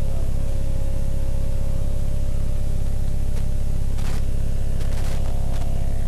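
A steady low drone with a regular throbbing pulse and a faint held tone above it, broken by a few scattered clicks.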